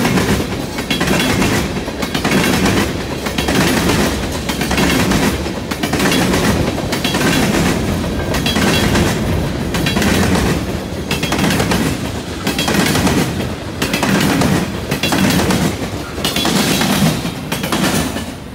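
Freight cars of a passing train, tank cars and a boxcar, their steel wheels clattering over rail joints and a junction switch. The loud clack-clack comes as each truck passes, about once a second, and drops off near the end.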